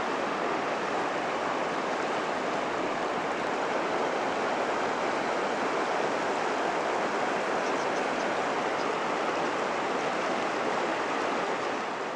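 River water flowing and rushing steadily over the riverbed, an even, unbroken wash of sound.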